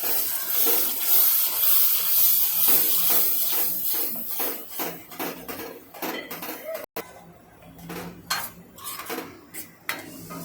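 Onion-tomato and garlic paste sizzling in hot spiced oil in a pan, with a metal spoon scraping and clinking against the pan as it is stirred. The sizzle is loudest in the first half; after an abrupt break about seven seconds in, mostly the spoon's scrapes and taps remain.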